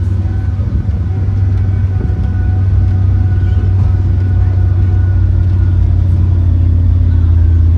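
Tour tram running steadily on the move, a low rumble heard from on board, growing slightly louder near the end.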